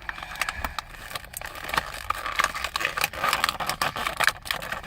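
Cardboard and plastic toy packaging rustling and crinkling as the box is handled and opened, with many small clicks and crackles that get busier in the second half.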